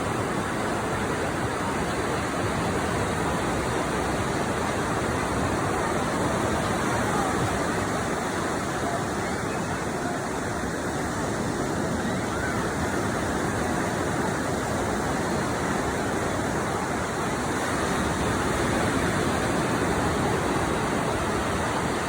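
Ocean surf on a beach: a steady rushing wash of breaking waves.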